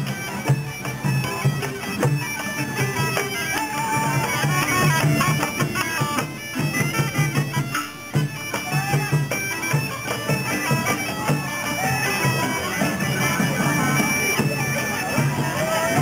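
Bagpipes playing a marching tune, the melody moving in steps between held notes without a break.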